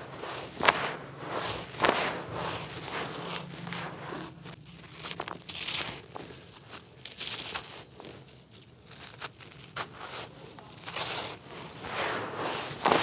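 Hands crunching and crumbling dry, gritty red dirt and a dried dirt block: sharp crackling clicks and the sandy hiss of grains shifting and pouring between the fingers, with the loudest crunch near the end.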